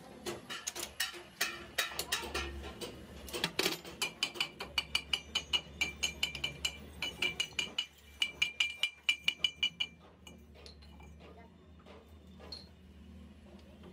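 Steel clinking of lathe keys and fittings as a truck drive shaft is set up in the lathe chuck: scattered clicks, then a quick run of ringing metal clinks, several a second, that stops about ten seconds in.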